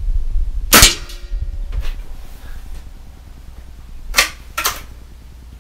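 A Sig Sauer ASP20 .22 nitro-piston break-barrel air rifle fires once, about a second in: a sharp crack with a short metallic ring. Near the end come two sharp clacks as the barrel is snapped open to cock the gas piston.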